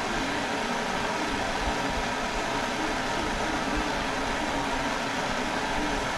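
Gas torch flame hissing steadily while heating a pure silver coin blank to soften it.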